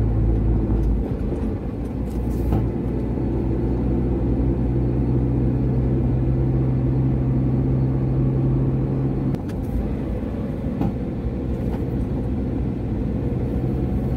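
Car engine idling steadily over low wind rumble. Its strongest hum cuts off about nine seconds in, and the sound drops a little.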